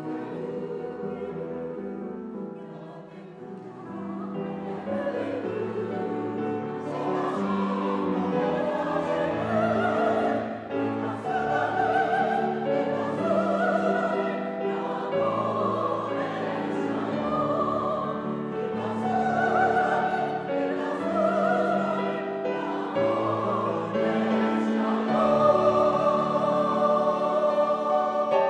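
Mixed choir of women's and men's voices singing a Japanese song with grand piano accompaniment. The singing drops softer a few seconds in, swells again, and ends on a long held chord near the end.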